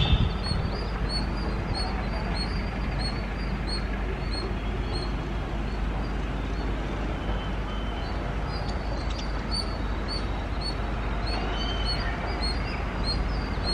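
Road traffic crossing railway tracks: motorcycles, scooters and auto-rickshaws running at low speed with a steady engine rumble. A short high chirp repeats about twice a second throughout.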